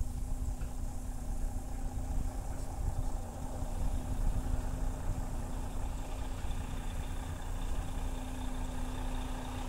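Diesel engine of a semi truck towing a stacking conveyor, running steadily as it approaches, its sound filling out and growing a little louder in the second half.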